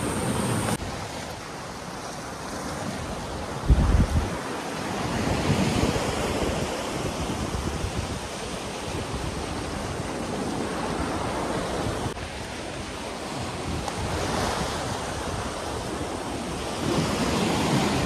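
Sea waves breaking and washing over a rocky shore, swelling and ebbing a few times, with wind noise on the microphone. There is a brief low thump about four seconds in.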